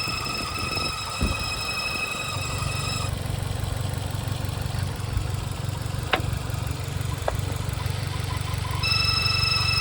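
Suzuki Jimny Sierra's K15B four-cylinder engine running, with a high-pitched whine ('kiin') from the left side of the engine that sounds for about the first three seconds, stops, and comes back near the end. The noise appears only once the engine is warm. Mechanics suspected the alternator or its pulley, but a new alternator has not cured it.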